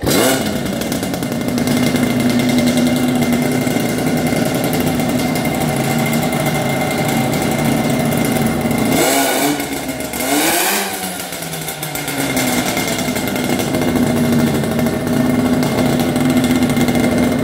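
Mobylette moped's small two-stroke engine catching right at the start, then running steadily. About ten seconds in the revs dip, then rise and fall again before it settles back to a steady run.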